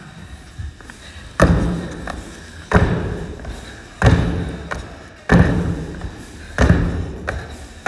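Feet landing hard during repeated box jumps on a plyo box: a heavy thud about every 1.3 seconds, five in all, each followed by a short echo.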